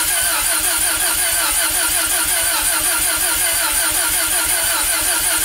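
Bridgeported Mazda 13B-REW twin-rotor engine turning over on its first start after a rebuild, a steady, even warble that rises and falls about four to five times a second.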